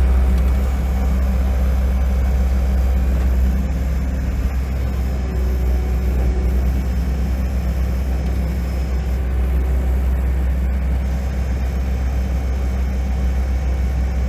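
Tractor engine running at a steady speed: an even, deep hum with no changes in pitch.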